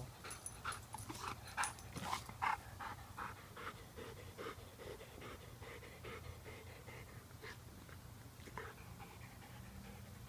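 Dog panting after chasing a thrown ball: quick, even breaths, about three a second, growing fainter after the first few seconds.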